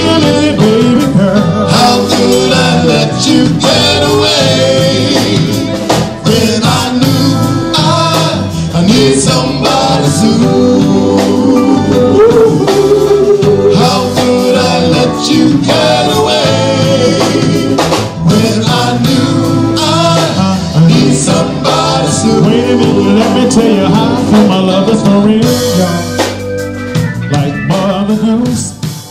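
Male R&B vocal group singing Motown-style harmonies live over a band with drum kit and guitar. The music fades out near the end.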